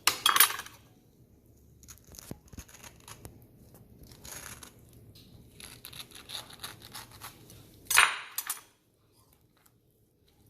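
Pineapple flesh being cut and scooped out of its shell: wet scraping and tearing in irregular bursts, with the loudest at the start and about eight seconds in, and light clicks in between.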